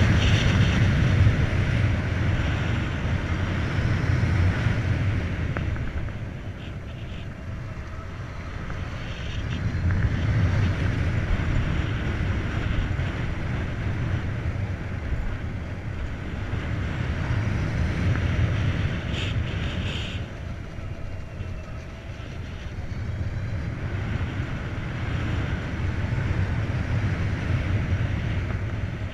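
Wind rushing over the microphone on a moving Volta BCN Sport electric motorcycle, a deep rumbling noise that swells and eases several times as the speed changes.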